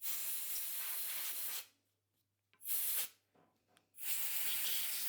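Three hissing blasts from a pressurised jet, clearing grit off the mating surfaces of a precision slide guide: a long blast, a short one about two and a half seconds in, and another long one near the end.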